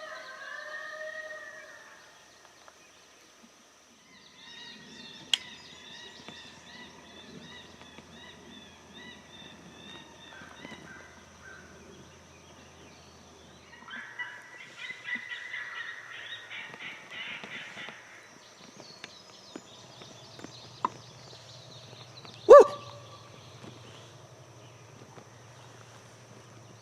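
Coyote calls: a falling howl at the start, bouts of rapid yipping, and one loud sharp bark about two-thirds of the way in, over a steady high-pitched drone.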